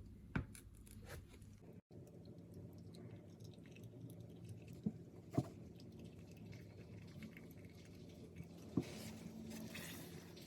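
A few sharp, light clicks and taps, spaced seconds apart, over a low steady hum, with a short stretch of soft scraping near the end.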